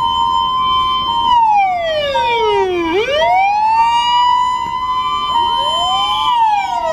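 Electronic sirens of a Japanese fire-department car and an ambulance. One siren holds a high tone, sinks slowly over about a second and a half, swoops back up and holds, then starts sinking again near the end. Alongside it, another siren beeps in short two-note calls.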